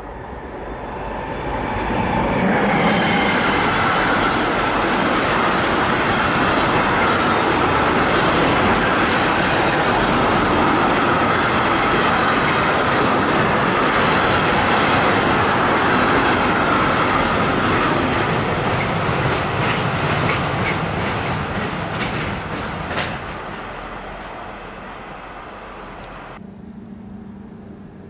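A container freight train passes at speed with a loud steady rush of wheels on rails that builds up over the first couple of seconds. Near the end, regular clickety-clack beats of the wagons' wheels come through as the last wagons go by and the sound fades away.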